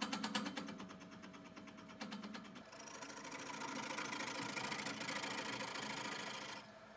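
Wood-turning gouge cutting a spinning spindle blank on an Omega Stubby wood lathe. It starts with a fast, even ticking, then from about three seconds in gives a steady hiss of shavings peeling off, which stops shortly before the end, leaving the lathe's fainter running sound.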